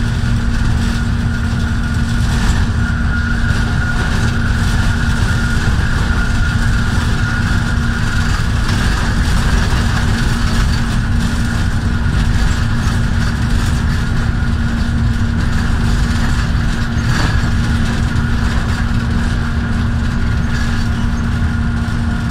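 GEU40 diesel-electric locomotive running at speed, heard from the cab: a steady, loud drone with a constant hum over an even low rumble.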